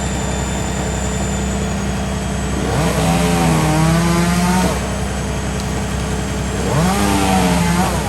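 Chainsaw engine running over a steady engine hum and revved up twice, each time rising quickly in pitch and holding high for one to two seconds before dropping back.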